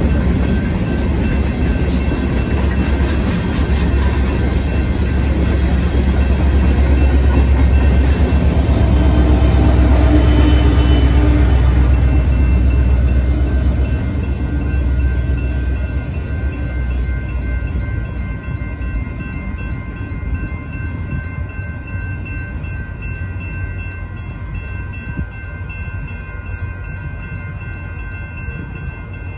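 A Union Pacific freight train's cars rolling through a grade crossing, a heavy low rumble that peaks about ten seconds in and then fades as the end of the train goes by. Steady ringing from the crossing signal bells carries on after the train has passed.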